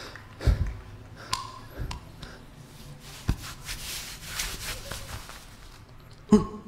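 Dancers' feet thumping and tapping on a stage floor, faint and scattered, with a louder thump near the end.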